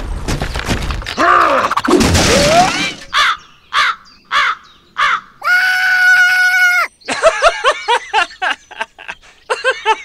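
Cartoon sound effects and squeaky, made-up character voices: a noisy rush with sliding tones for the first three seconds, then short chirps, a held squeaky tone near the middle, and quick chattering gibberish voices toward the end.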